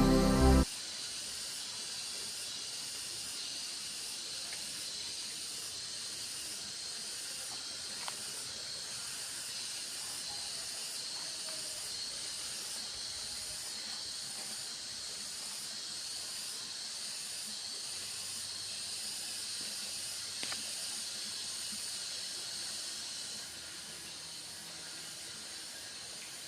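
Steady high-pitched hiss of outdoor ambience, with a faint regular pulsing in its highest part. Background music cuts off just under a second in.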